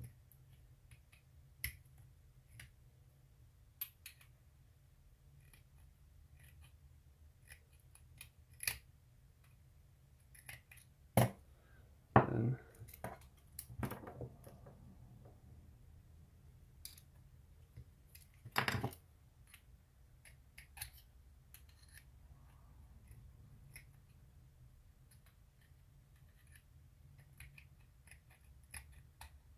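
Small metal tools and a metal workpiece being handled and set down on a hard stone countertop: scattered light clicks and taps, with a few louder knocks, the loudest about halfway through.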